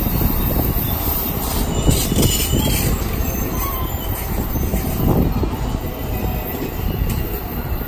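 Amtrak Superliner bilevel passenger cars rolling past on the rails: a loud, steady rumble of wheels on track, with faint wheel squeal a couple of seconds in.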